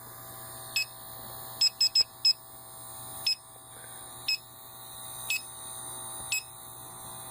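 Electronic refrigerant leak detector beeping about once a second, with a quick run of four beeps around two seconds in, as it sniffs an R-22 air-conditioning evaporator coil that is leaking refrigerant. A steady low hum runs underneath.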